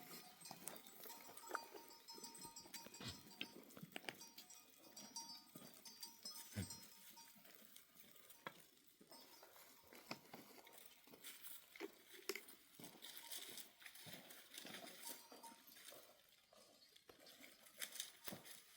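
Faint clinking of livestock bells on a flock of sheep and goats, with scattered short clicks.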